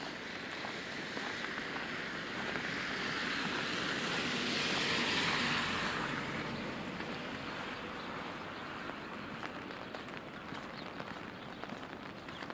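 Steady rain on wet pavement, with a vehicle's tyres hissing past on the wet street. The hiss swells to its loudest about five seconds in and then fades away.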